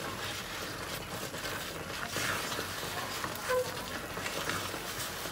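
Spatula stirring and scraping a thick mix of misoa noodles, vegetables and flour around a stone-coated wok, in irregular strokes.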